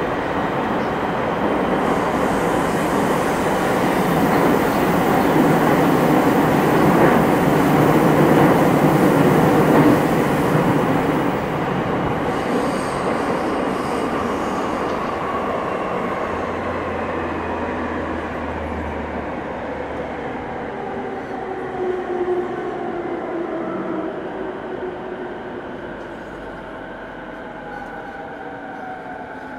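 Running sound inside a JR East 209 series 500-subseries electric train underground: a heavy wheel-and-rail rumble that builds to a peak around ten seconds in and then fades as the train slows. Through the second half, the electric traction motors' whine falls steadily in pitch, the sound of the train braking toward a stop.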